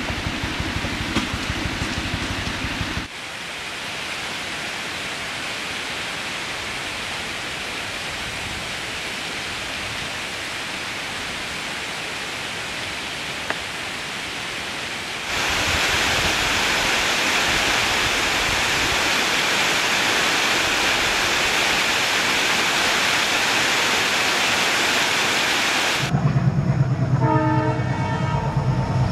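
Steady rush of water from monsoon waterfalls cascading down rocky hillsides, louder and brighter from about halfway through. Near the end it cuts to an approaching train's low rumble with a steady tone sounding over it.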